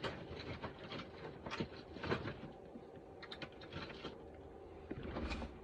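Irregular light clicks and taps of small tools and parts being handled on a workbench, with a faint steady hum underneath.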